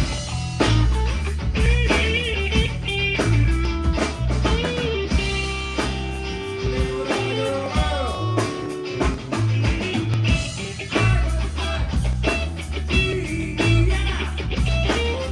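Live rock band playing an instrumental passage: a lead electric guitar line with bending notes over bass and a drum kit.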